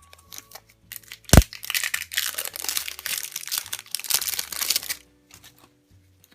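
Plastic packaging of a Darth Vader head candy toy being torn and crinkled open by hand, with one sharp snap about a second and a half in, then dense crinkling for several seconds.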